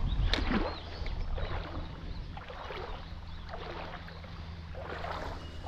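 Legs wading through shallow river water, a splashing swish with each step, over a low rumble of wind on the microphone.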